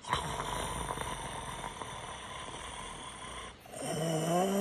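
A man imitating snoring with his throat and breath: one long rasping snore, then after a short break a pitched, wavering hum on the breath out starts near the end.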